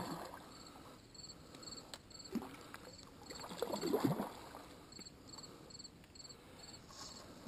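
Hooked trout splashing and thrashing at the water's surface as it fights the line while being tired out before netting. The splashing comes in irregular bursts and is loudest about four seconds in.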